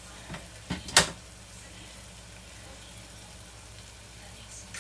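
A few short clinks of a utensil against a dinner plate, the sharpest about a second in, over a faint steady background hiss.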